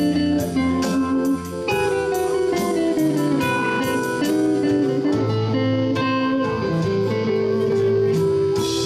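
Live R&B-rock band playing an instrumental passage: electric guitar notes over bass, keyboards and a drum kit with a regular cymbal tick.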